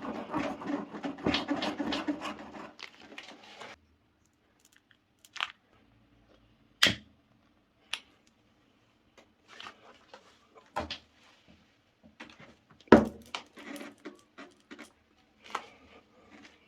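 Tubeless tyre repair tools at work. A rasp (reamer) tool scrapes in and out of the puncture for the first three and a half seconds. Then come scattered clicks and knocks of tool handling, the loudest about thirteen seconds in.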